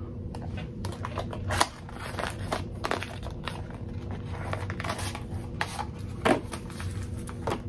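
Cosmetic product packaging being handled and opened by hand: irregular rustling and crinkling with small clicks and taps.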